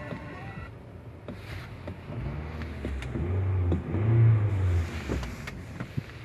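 Car engine being revved: it rises to a peak about four seconds in and then drops back, with a few scattered clicks.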